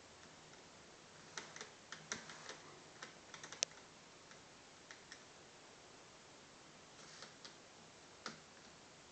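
Faint, scattered small clicks and taps of a screwdriver and small screws being driven back into a netbook's plastic screen bezel, with a quick cluster of clicks in the first few seconds and a few single taps later.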